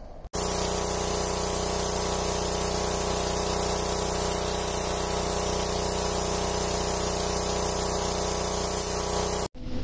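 Pressure washer running, its jet spraying against a narrowboat's steel hull to clean it for blacking: a steady hiss of spray over the machine's even hum. It starts abruptly just after the beginning and cuts off abruptly near the end.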